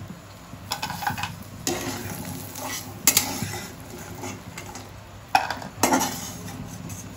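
A flat metal spatula scraping and clattering against a metal kadai as fried lentil boris are scooped out, in several short strokes, over a light sizzle of frying oil.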